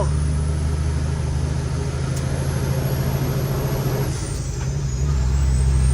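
Cummins X15 diesel of a loaded Kenworth T800 truck, heard from the cab, pulling hard under load with a steady low drone and a high whistle above it. About four seconds in, the engine note dips briefly, then picks back up.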